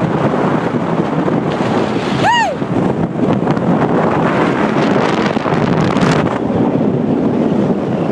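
Strong mountain wind buffeting a phone's microphone, a loud, steady rushing roar. About two seconds in, a single short, high call rises and falls in pitch over it.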